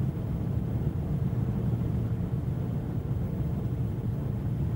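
Steady low rumble of a ship's machinery heard below decks, with a faint steady hum.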